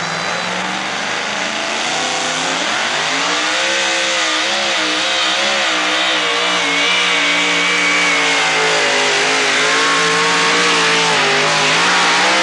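Supercharged engine of a two-wheel-drive pulling truck at full throttle during a pull. Its pitch climbs about two seconds in, then holds high, wavering up and down as the truck drags the sled.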